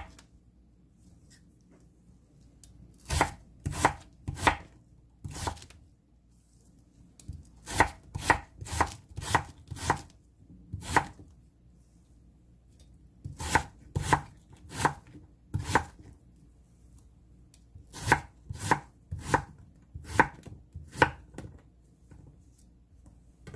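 Chef's knife slicing Korean radish into thin squares on a wooden cutting board: sharp knocks as the blade cuts through and meets the board, in runs of several strokes about twice a second with short pauses between.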